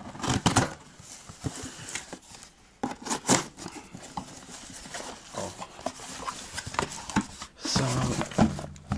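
A knife blade slicing along the packing tape of a cardboard shipping box, with cardboard rustling and knocking as the flaps are opened. A louder scraping comes near the end as the inner product box is drawn out against the cardboard.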